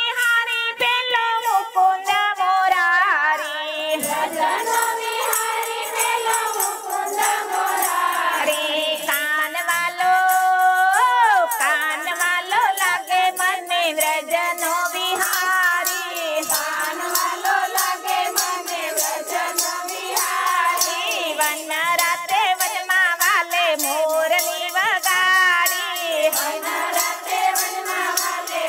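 Women singing a Gujarati devotional kirtan together, with jingling hand percussion keeping a steady beat.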